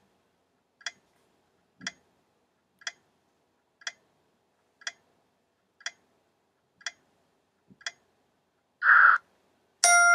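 Countdown timer sound effect: a clock ticking about once a second, then a short rush of noise and a bright ringing chime near the end as time runs out.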